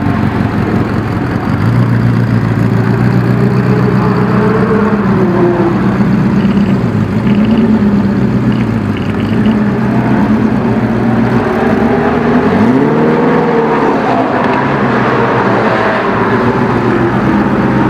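Ferrari F40's twin-turbo V8 running. Its pitch drops and climbs again about four seconds in, and rises sharply as it is revved a few seconds before the end.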